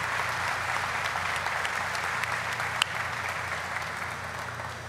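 Audience applauding, the clapping dying away gradually toward the end.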